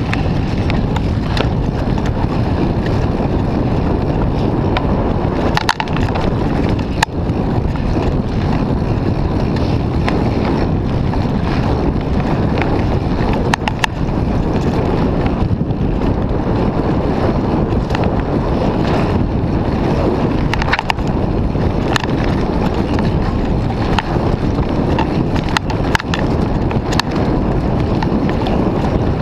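Wind buffeting an action camera's microphone on a mountain bike riding fast downhill, over the steady rumble of tyres on a dirt trail covered in dry leaves. Scattered sharp clicks and knocks from the bike rattling over the rough ground.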